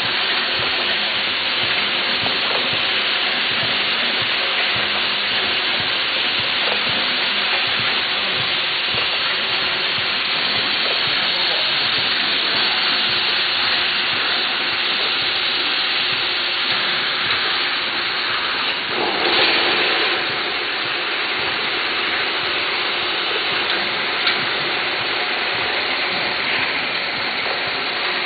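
Steady mechanical hiss of a running pad-printing machine, with a louder rush of noise lasting about a second, two-thirds of the way through.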